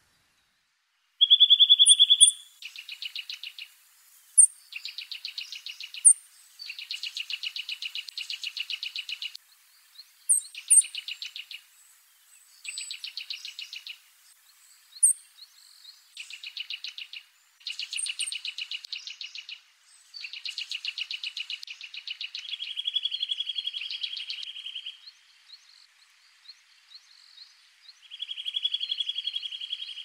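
Eurasian nuthatch singing: about ten bouts of rapidly repeated whistled notes, each bout a second or two long with short pauses between. The first bout, about a second in, is the loudest.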